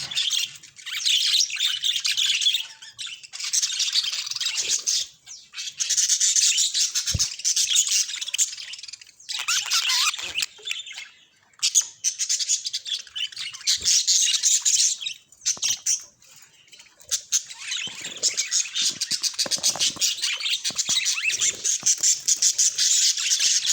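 Budgerigar warbling and chattering: long runs of rapid, high chirps and squawks broken by short pauses.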